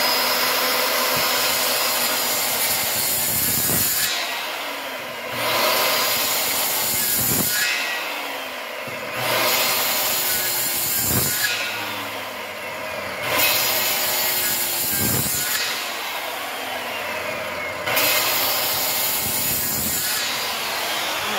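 Circular saw running continuously while making repeated shallow scoring cuts across a pressure-treated wooden post. Its motor note sags and recovers every couple of seconds as each pass goes through the wood.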